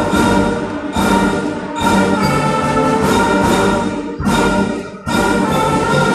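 School band playing the opening of a piece, loud and brass-heavy: sustained full-band chords, freshly accented with a sharp attack roughly every second.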